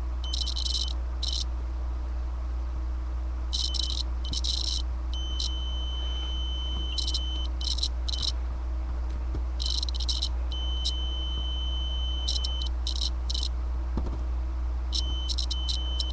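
Continuity tester beeping across the ignition terminal of a Datsun 280Z ignition switch as the key is turned. The tone comes and goes several times: steady for a second or two, then stuttering and crackling as the contact makes and breaks. Sounds nasty, from worn, trashed contacts inside the switch that drop the ignition line when the key is turned.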